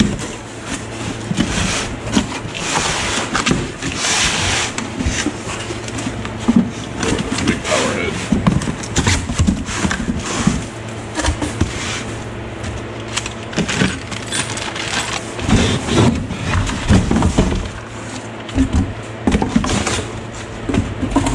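Cardboard box being opened and unpacked: flaps and cardboard packing inserts rustling and scraping, with frequent knocks and thumps as the contents are handled.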